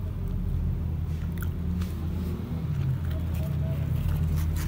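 A man chewing food, with faint mouth clicks, over a steady low hum.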